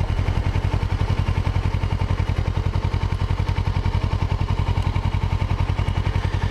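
Kawasaki Ninja 650R's parallel-twin engine running steadily, an even pulsing exhaust note with no revving, freshly serviced with a new air filter and oil change.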